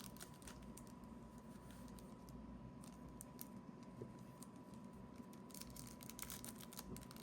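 Faint, scattered light clicks and taps of hands handling trading-card blaster boxes and packs, with a faint steady hum underneath.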